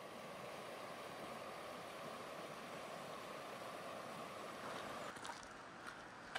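Flowing creek water, a steady rush that drops away about five seconds in.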